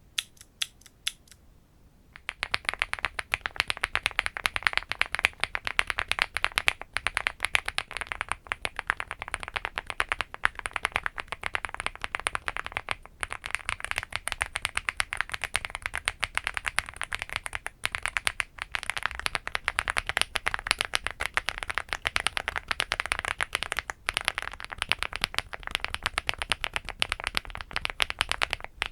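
Fast, steady typing on a LEOBOG Hi8 aluminium mechanical keyboard, in runs of five to six seconds split by short breaks. Each run is on a different set of switches: KTT Weikav Coconut Latte, JWK Vertex V1, LEOBOG Graywood V3, Akko CS Piano, then HMX Lantopa. A few single clicks come before the typing starts about two seconds in.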